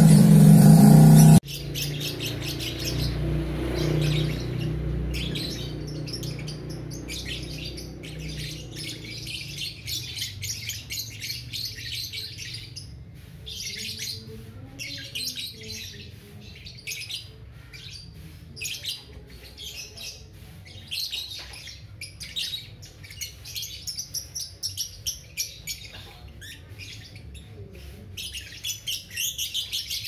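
Young lovebird chattering in the 'ngekek' song: quick trains of short, high chirps, broken by short pauses. It opens with a loud sound that cuts off abruptly about a second and a half in.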